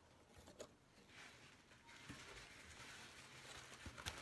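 Faint rustling of a cardboard box's flaps being folded open by hand, with a light tap about half a second in and a couple of sharper clicks near the end.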